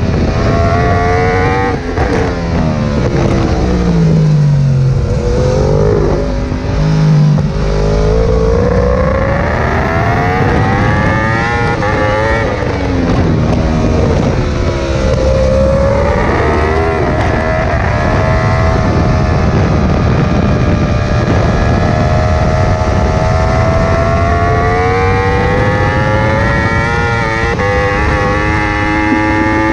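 Yamaha R1's crossplane inline-four racing engine heard from on board at full speed. The engine note falls steeply a couple of seconds in as the bike slows and shifts down, climbs again as it accelerates out. It dips briefly once more, then rises in one long steady climb through the second half.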